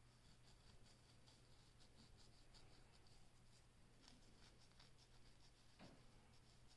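Faint, quick scratching strokes of a fine-tooth plastic comb dragged across a dandruff-flaked scalp and short hair, several strokes a second in uneven runs.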